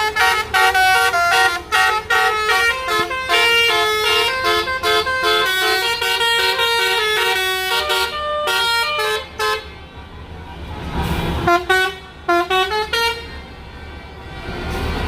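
Basuri telolet bus horn, a multi-tone electric horn, playing a fast tune of short notes that step up and down. About ten seconds in the tune breaks off into a quieter stretch with a brief rush of noise, a few more horn notes, then a low engine hum.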